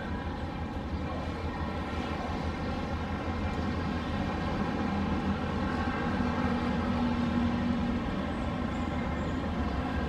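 Steady drone of distant engines over a low hum, with the city's motor noise swelling slightly in the middle and an added steady tone for a few seconds.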